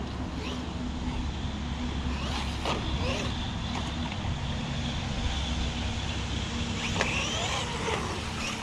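Brushless electric motor of a 1/12-scale 4x4 RC car whining up and down as it is throttled in bursts, with a few sharp knocks from the car hitting the ground, over a steady low rumble.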